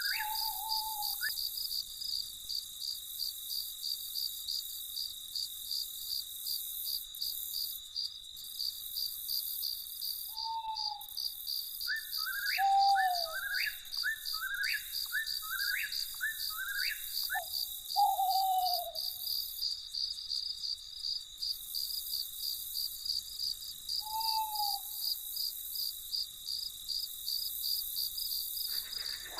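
Crickets chirping in a steady, fast pulse, with a night bird calling now and then: a few short falling notes and, in the middle, a quick run of rising notes.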